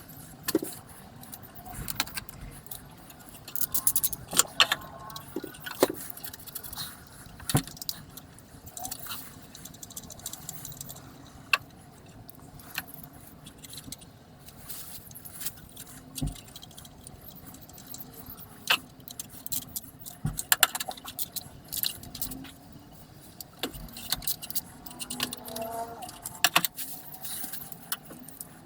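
Metal hand tools and engine parts clinking and clattering at irregular intervals, with sharp clicks scattered throughout, as parts are refitted to the engine.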